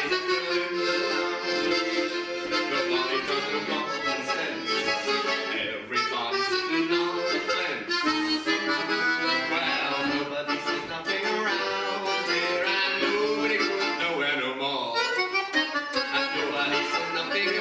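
Piano accordion playing a tune: held chords with a melody moving over them.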